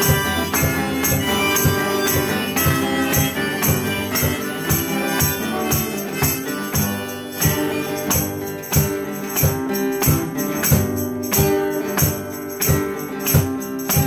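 Steel-string acoustic guitar strummed in a steady rhythm through an instrumental break, with a low thump on the beat about twice a second.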